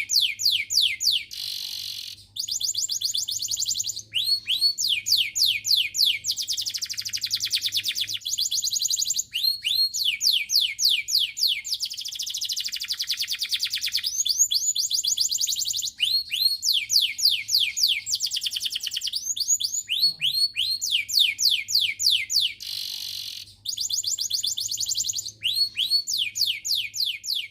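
Canary singing: long, fast trills of rapidly repeated falling whistled notes, strung together in runs with a few brief pauses.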